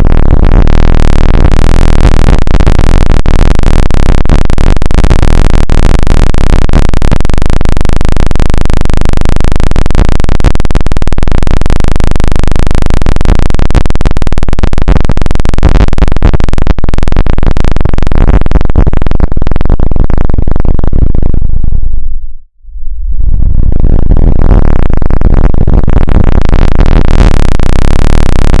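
Loud, harsh synthesized electronic noise at near full volume, dense and heavy in the bass. About two-thirds of the way through, its treble falls away until it cuts out for a moment, then it swells back to full.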